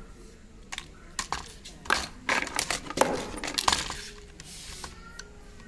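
Cutting pliers snipping and working the bare copper loop wire between switch terminals on a switchboard: a run of sharp metallic clicks and snaps. The loop is being cut so that a few switches can take a separate inverter supply.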